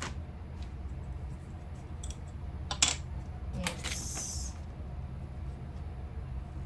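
Handling sounds: a few light clicks, the loudest about three seconds in, then a short rustle, over a steady low hum.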